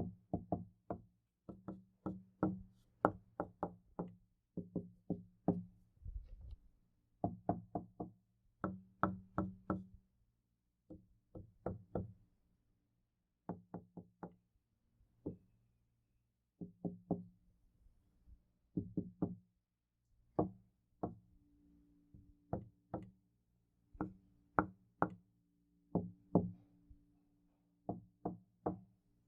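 Knocking on a door in quick groups of two to five raps separated by short pauses, each rap leaving a brief low ringing from the door.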